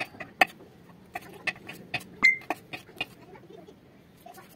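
Kitchen knife slicing a green bell pepper on a wooden cutting board: irregular sharp knocks as the blade goes through the pepper and meets the board, about eight in the first three seconds, then stopping. One short high squeak a little past two seconds in.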